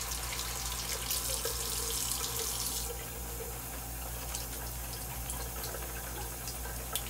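Wet shaving brush face-lathering soap on the cheek: a steady wet brushing noise that softens about three seconds in, over a steady low hum.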